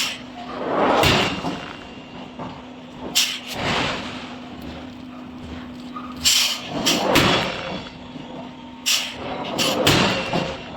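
Forge-shop machinery and metalwork: sharp clanks struck at irregular intervals, with swelling hiss-like rushes of about a second each, over a steady machine hum.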